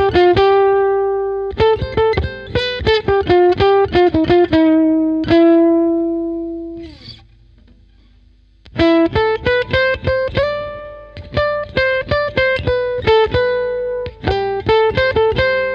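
Guitar music: quick runs of plucked notes, then one held note that rings out and fades about six seconds in. After a pause of about two seconds the playing starts again.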